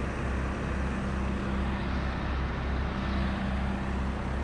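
Volvo A30C articulated dump truck's diesel engine running steadily, heard from inside the cab with a low, even drone.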